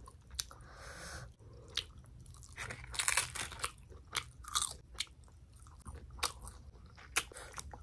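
A person chewing and biting food close to the microphone, with crunchy bites and frequent sharp clicks of chewing.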